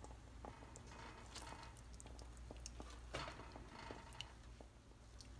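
Near silence: faint clicks and soft handling noises from kitchen tongs lifting boiled pork ribs out of the pot into a metal colander, over a low steady hum.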